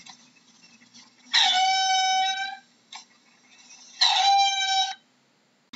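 Meerkat calling: two loud calls, each held at one steady pitch, the first about a second and a half in and lasting over a second, the second shorter near the end, with a brief click between them.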